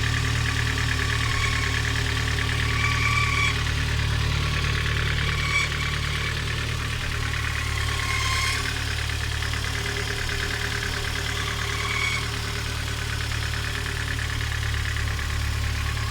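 Ford Focus 2 idling, with a chirping, warbling squeak and grind from the IB5 manual gearbox and clutch, coming and going every second or two over the steady engine hum. It sounds like a flock of budgerigars; the owner suspects the clutch release bearing or the gearbox input shaft bearing.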